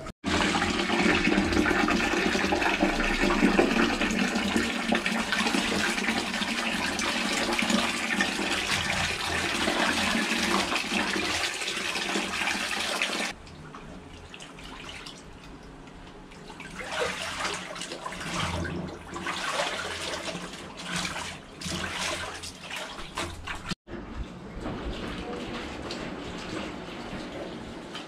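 Water pouring steadily from a tap into a plastic basin for about thirteen seconds, then stopping abruptly. Quieter, irregular sloshing and splashing follows as clothes are washed by hand in the basin.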